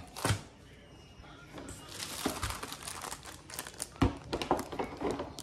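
Thin clear plastic bag crinkling as it is handled, with a sharp crackle just after the start and denser crinkling from about two seconds in. About four seconds in, a knock as a WeatherTech floor liner is lifted and shifted on the counter.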